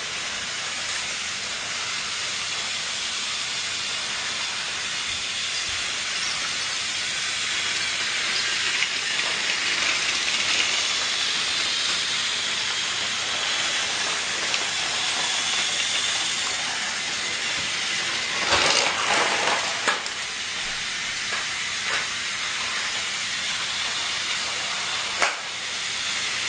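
Steady hissing noise, with a cluster of clicks and knocks about two-thirds of the way through and one sharp click near the end.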